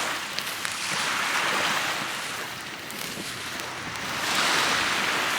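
Small waves on Lake Ontario washing up on the beach, swelling and falling back twice.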